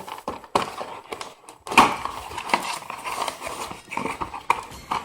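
Toy packaging being handled and opened: irregular rustling and crinkling with sharp clicks and knocks, the loudest knock about two seconds in.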